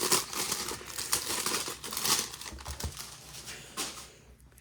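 The foil wrapper of a trading-card pack crinkling and tearing as it is opened and handled. It makes a run of short crackly rustles that die away near the end.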